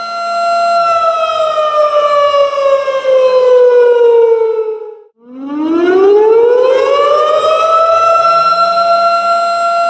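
Tornado warning siren wailing: a steady high tone that slides down in pitch and fades out about five seconds in, then climbs straight back up and holds steady again.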